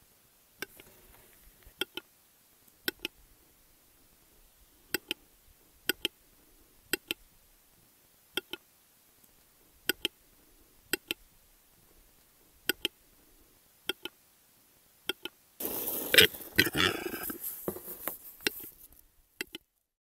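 Male western capercaillie's display song: sharp, dry clicks, mostly in close pairs, about one pair a second, then about three seconds of harsh scraping, grinding noise (the whetting phase) starting some fifteen seconds in.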